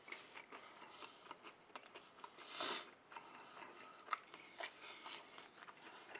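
Quiet mouth sounds of a man chewing a bite of vegan pizza: soft irregular clicks, with one short louder rush of noise about two and a half seconds in.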